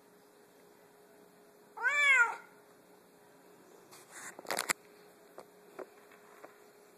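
Savannah cat giving one loud meow about two seconds in, its pitch rising then falling. A couple of seconds later comes a quick cluster of short clicks and knocks.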